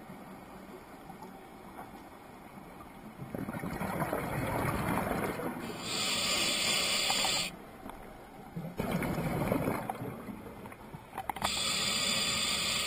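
Scuba diver breathing through a regulator, heard through the camera's underwater housing: two breath cycles, each a rushing inhale followed by a loud burst of exhaled bubbles.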